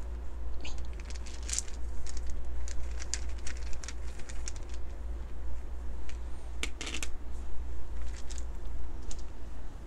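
Small wooden letter dice clicking and rattling inside a cloth drawstring bag as it is shaken, then clattering out onto cards on a wooden table, with the loudest clatter about seven seconds in. A low steady hum runs underneath.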